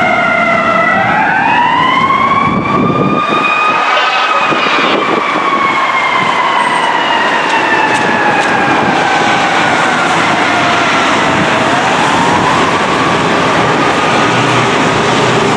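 Fire engine siren wailing in slow glides: the pitch dips, rises over a few seconds, then falls slowly for about seven seconds before rising again near the end, with road traffic noise underneath.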